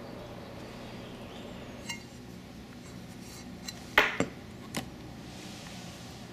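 Light metallic clinks and knocks as an aluminium launching-wheel bracket is handled and set against a boat's transom, a few sharp taps with the loudest about four seconds in.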